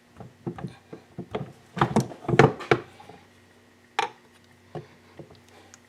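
Irregular knocks and clunks of the 2001 Yamaha WR426F's crankcase halves being handled and pushed together, densest about two seconds in, with one sharp click near four seconds. The halves are not seating: something is not lined up.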